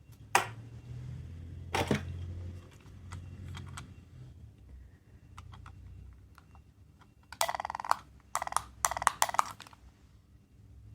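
Small plastic capsule toy clicking and rattling: two sharp clicks, then near the end a run of short bursts of rapid rattling clicks.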